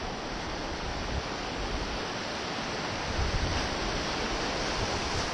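Rushing whitewater of a river rapid, a steady continuous hiss of water heard from a cataraft as it enters the rapid.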